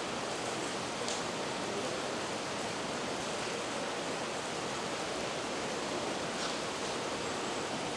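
Heavy rain falling steadily, an even hiss with a couple of faint ticks.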